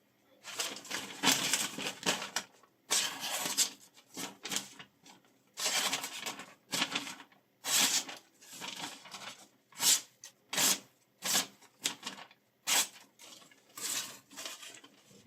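A knife blade drawn repeatedly across a surface in scraping strokes, roughly one a second, some short and some drawn out.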